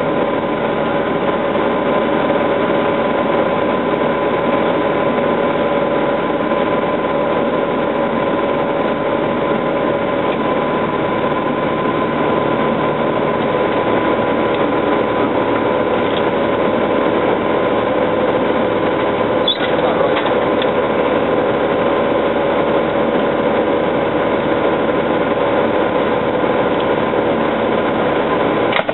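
Military vehicle engine idling steadily, heard from inside the halted vehicle, with a constant whine running through it.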